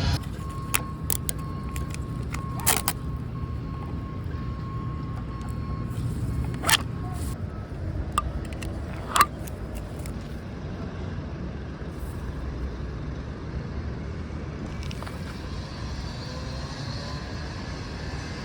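Steady low rumble of a motor vehicle, with a few sharp clicks and knocks in the first half and a faint steady tone for several seconds near the start.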